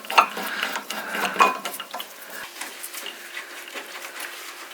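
Small metallic clicks and ratcheting clinks of hand tools and metal stove parts being worked, as legs are fitted to a steel stove-fireplace. There are two sharper knocks, one near the start and one about a second and a half in; the second rings briefly.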